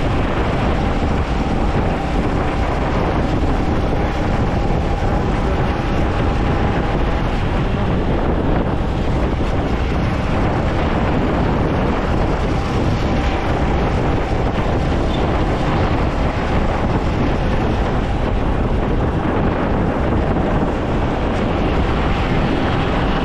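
Steady wind rushing over the microphone on a moving motorcycle, with the Yamaha MT-15's single-cylinder engine running beneath it.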